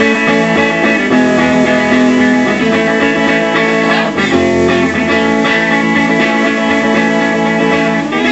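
Gibson electric guitar played through an amp, strumming chords that ring on and change every second or so.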